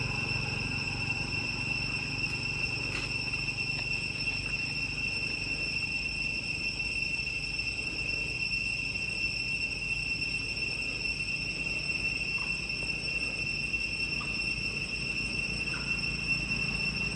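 Steady, unbroken high-pitched drone of insects, crickets or cicadas, over a low steady rumble.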